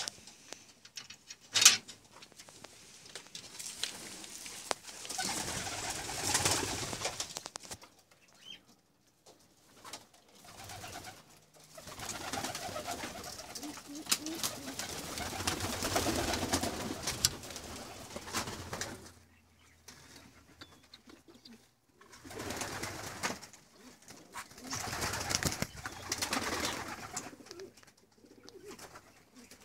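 Domestic pigeons cooing in a loft, in several swelling stretches with short pauses between, and one sharp click about two seconds in.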